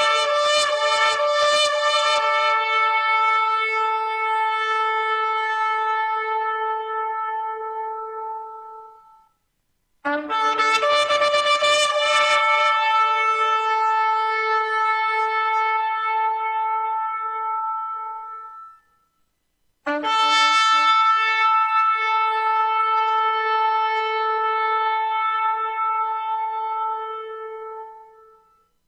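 A horn blown in three long blasts, about ten seconds apart. Each blast opens with a quick stuttering run of short notes, then holds one rich, brassy tone for several seconds before fading away. Another blast starts right at the end.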